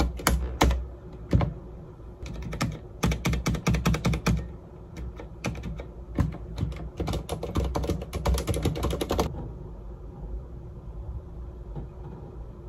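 Typing on a computer keyboard: quick runs of key clicks broken by short pauses, stopping about nine seconds in.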